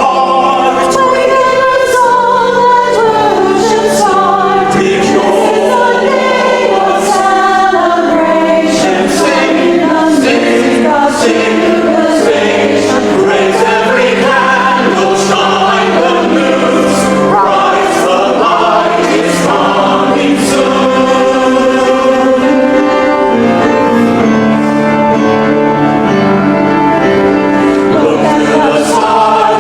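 Church choir singing a sacred choral piece, several voice parts in sustained harmony.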